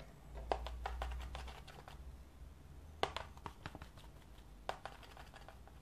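Scattered light clicks and taps of a paintbrush and palette being handled while mixing watercolour paint, over a low steady hum.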